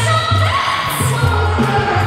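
Pop song with singing over a bass line that steps between notes, playing as dance music for a stage show.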